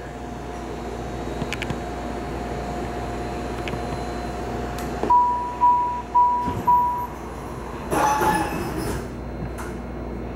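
Inside a MARTA rapid-transit railcar standing at a station: a steady tone, then four short door-closing warning beeps about five seconds in, followed about three seconds later by the doors sliding shut with a rushing burst. A low hum from the car runs underneath throughout.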